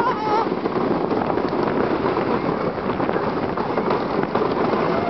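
Roller coaster train running along its track, a steady loud rumble and rattle mixed with wind rushing over the microphone.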